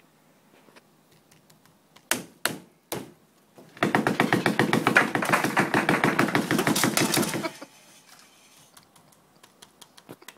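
Three sharp knocks, then a cubicle partition panel shaken hard by hand, rattling rapidly for about four seconds before stopping abruptly.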